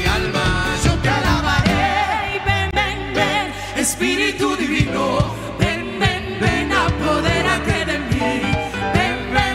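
An old Pentecostal chorus (coro) sung over a full band, with a strong, regularly pulsing bass line.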